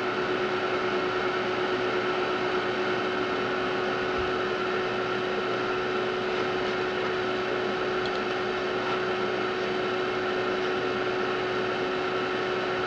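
Amiga 4000's hard drive and power supply running: a steady hum with a constant tone over an even hiss.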